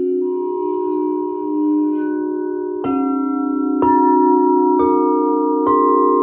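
Crystal singing bowls ringing in several layered, sustained tones. From about three seconds in, four mallet strikes about a second apart each bring in a new ringing tone over the others.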